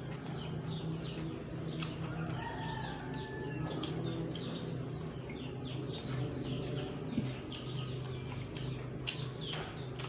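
Chickens and other birds calling, with many short, high chirps repeating a few times a second and a few longer calls in between, over a steady low hum.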